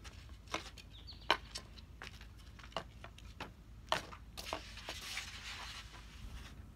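Hockey stick blade knocking and clicking against a puck while stickhandling on a shooting pad and asphalt: irregular sharp knocks, the loudest about a second in, with a short scrape near the end.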